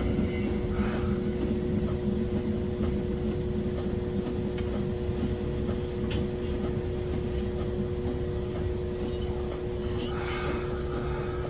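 Kintetsu electric train running, heard from inside the front of the car: a steady two-tone motor hum over the rumble of wheels on the rails, with a few faint clicks.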